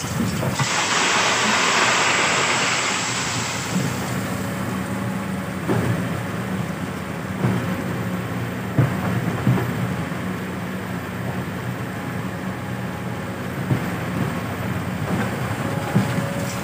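Sand and gravel pour through an inclined wire sifting screen for the first few seconds. After that the Kobelco crawler excavator's diesel engine runs steadily, with scattered knocks of stones.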